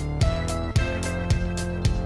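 Outro music with a steady beat: a low thump about every half second under sustained chords.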